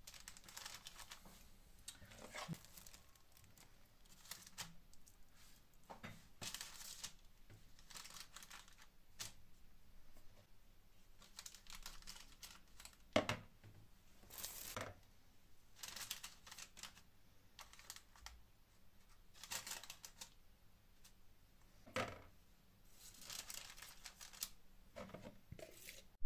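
Baking parchment rustling and crinkling faintly in short patches as topped bread slices are laid out on a paper-lined baking tray, with a few soft knocks.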